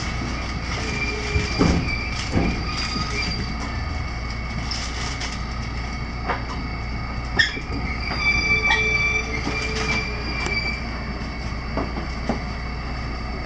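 Electric train's wheels squealing as it rolls slowly into a station platform, heard from inside the train, over a steady running rumble with a few sharp knocks. The squeal is strongest from about eight to ten seconds in.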